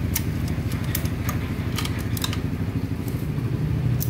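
Snapped cam chain of a Yamaha Aerox engine clinking as it is worked out by hand: a scatter of short, sharp metallic clicks. Underneath, a steady low engine rumble.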